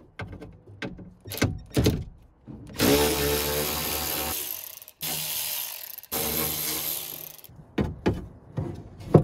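Cordless electric screwdriver with a socket bit backing out the window-regulator bolts from a car's inner door panel. The tool runs three times, the first about two seconds long, between light metallic clicks and knocks as the bit is seated and the loosened parts are handled.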